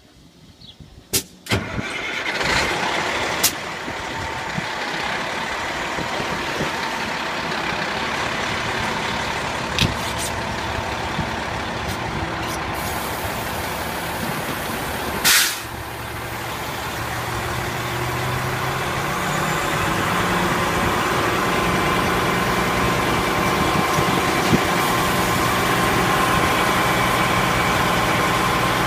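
Fire engine's diesel engine starting and running, driving the fire pump. After a brief loud burst of noise about fifteen seconds in, the engine speeds up over a few seconds as the pump is brought up toward 175 psi discharge pressure, then holds steady.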